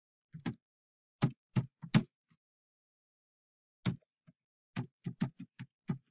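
Computer keyboard keystrokes: scattered single taps through the first half, then a quick run of about seven keys near the end.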